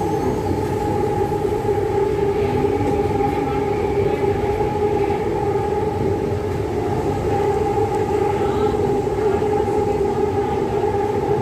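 Electric woodworking machine running steadily under load, a continuous motor whine over a rough noisy bed.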